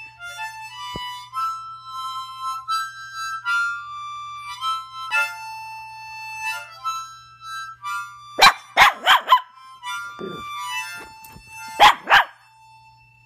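Harmonica playing a slow tune of held notes, with a small dog joining in with short, loud barks: four in a quick run about eight seconds in and two more near the end.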